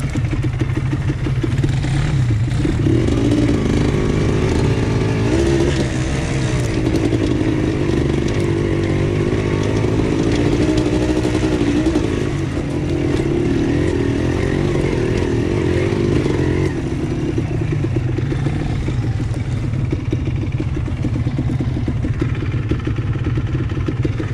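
ATV engine running steadily, with its pitch rising and falling under throttle for a long stretch in the middle before settling back to a steady run.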